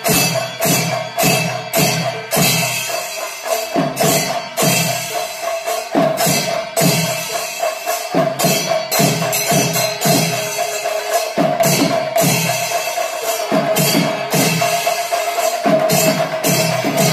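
Kerala temple percussion ensemble (chenda melam): chenda drums and clashing cymbals beaten in a continuous rhythm, with deep drum strokes and a steady held high note running through.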